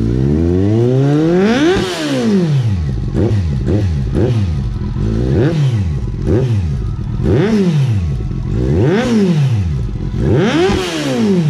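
Kawasaki Z800's inline-four engine breathing through a LeoVince aftermarket slip-on exhaust, blipped repeatedly from idle. There are about seven quick revs, each climbing sharply and falling straight back to idle, with a longer climb near the start.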